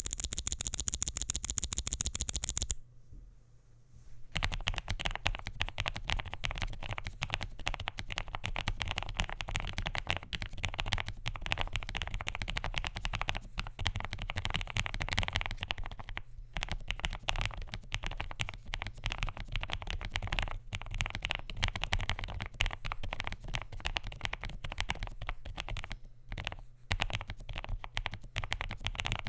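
Continuous typing on a low-profile mechanical keyboard (Marvo ColorReco S75/A75) with lubed, filmed Kailh Low Profile White Peach tactile switches, polycarbonate plate and PBT keycaps. It opens with a louder, brighter run of fast keystrokes, pauses briefly, then settles into steady, dense typing with short breaks.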